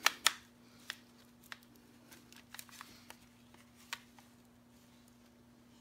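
Hard plastic clicks from handling FPV goggles: two sharp snaps right at the start as the clip-in infrared emitter module is pushed into place, then scattered lighter clicks and taps.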